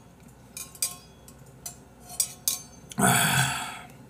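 Light clicks and taps from a stainless steel tumbler being handled, scattered over the first three seconds, then a short, louder breathy sound from the man about three seconds in.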